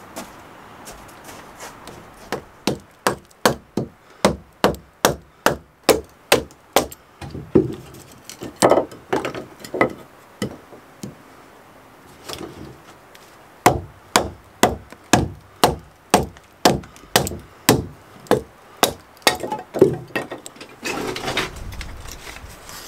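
Wood being split into kindling with a blade: two long runs of sharp, even wooden chopping strikes, about two to three a second, with a pause between them. Near the end the split sticks clatter as they are gathered up.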